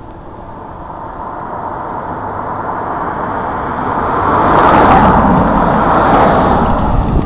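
A car driving past close by, its tyre and engine noise building steadily, loudest about five seconds in and easing off near the end.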